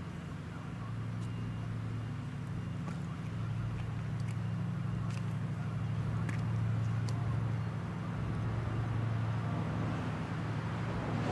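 Low, steady drone of the patrol vessel Kunigami's engines as it runs at speed, slowly growing louder, with a broader rushing noise building near the end.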